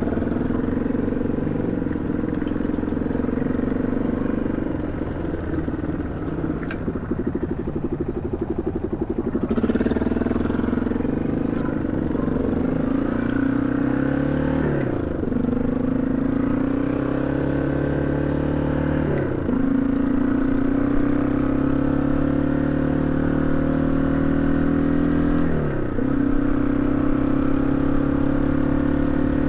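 Yamaha XT225 Serow's single-cylinder four-stroke engine running under way. From about a third of the way in it pulls harder, and three times (about halfway, about two-thirds in and near the end) the pitch dips sharply and climbs again as the rider shifts up through the gears.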